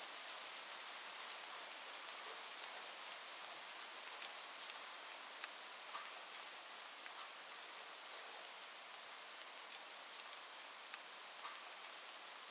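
Steady rain: an even hiss of falling rain with scattered sharp drop ticks.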